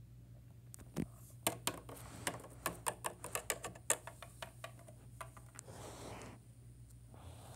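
Quick runs of small plastic taps and clicks as toy figures and pieces are handled on a plastic dollhouse floor, followed by a short soft scraping rustle near the end.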